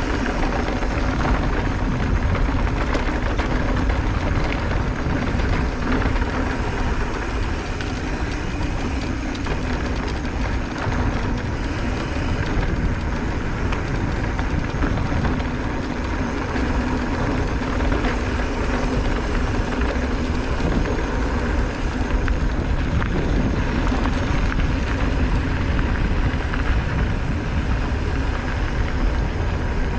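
Giant Reign E+ electric mountain bike rolling along a dirt fire road: a steady rumble of tyres on packed dirt, with constant small rattles and clicks from the bike and the loose ground.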